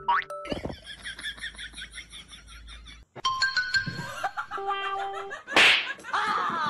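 Edited-in comedy soundtrack: a short rising glide, then giggling laughter for about three seconds. After a brief gap comes a music cue, with a loud noisy whoosh-like burst about five and a half seconds in.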